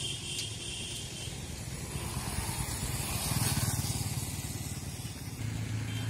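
Low engine rumble of a motor vehicle passing on the road, swelling to its loudest about three and a half seconds in and then easing off.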